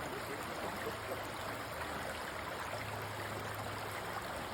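Shallow stream flowing over and between river stones, a steady rush of water.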